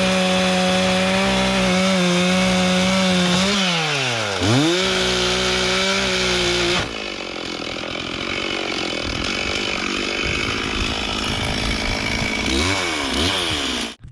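Chainsaw running at high speed cutting through a hardwood log. About four seconds in, the engine pitch drops sharply and climbs back. Near seven seconds the sound turns suddenly quieter and rougher, gives another brief dip and rise near the end, then stops abruptly.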